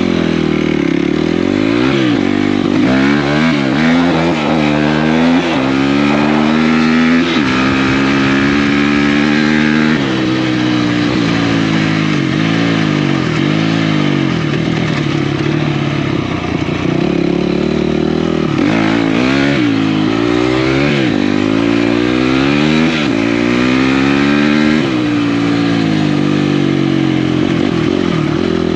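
Off-road racing machine's four-stroke single-cylinder engine under hard riding, the pitch climbing through each gear and dropping back on the throttle again and again. A steady rush of noise runs underneath.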